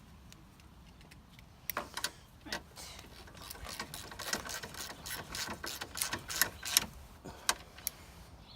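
Small socket ratchet clicking in quick irregular runs as bolts are turned with a 10 mm socket, starting about two seconds in and thinning out near the end.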